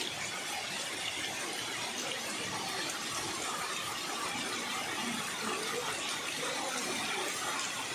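Heavy rain pouring down onto a waterlogged street, a steady hiss with no letup.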